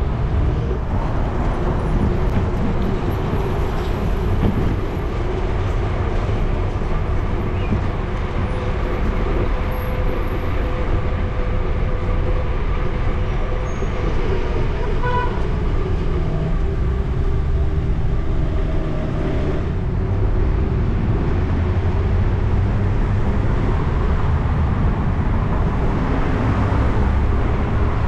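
Wind rumbling on a bicycle-mounted action camera's microphone while riding, over street traffic, with a brief higher tone about halfway through.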